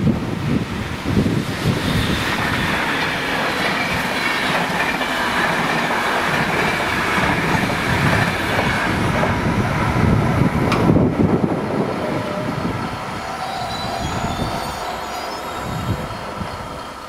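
RegioJet locomotive-hauled passenger train passing over a level crossing, wheels clattering and rumbling on the rails, with one sharp click about eleven seconds in. The sound eases off over the last few seconds as the train moves away.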